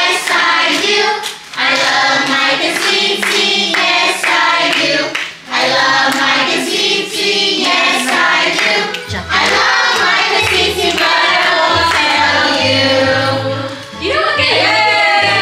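Voices singing a song over music, with hand clapping; a deep bass line comes in about nine seconds in.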